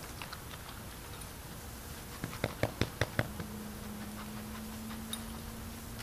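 A quick run of about six sharp clicks or taps within about a second, followed by a faint steady hum.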